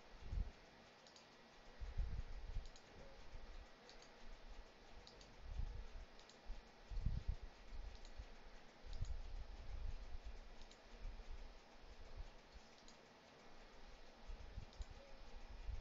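Quiet computer mouse clicks, about one a second, with louder dull low bumps now and then.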